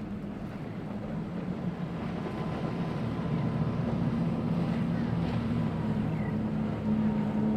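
Motorboat engine running, growing steadily louder as the boat draws nearer.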